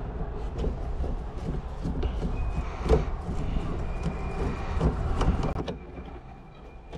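Scattered clicks, knocks and rattles of hand tools and a cab panel being handled as an excavator's dash monitor is unbolted, over a low rumble. The loudest knocks come about three and five seconds in, and the noise eases off near the end.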